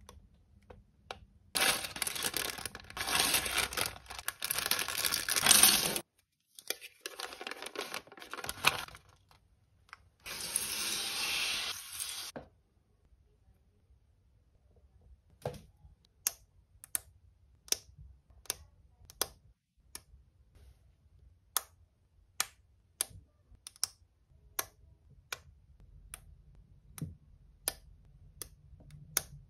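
A plastic LEGO polybag crinkling and tearing open in loud bursts for the first twelve seconds or so. After a short pause comes a run of sharp clicks, roughly one a second, as LEGO minifigure parts and bricks are pressed together.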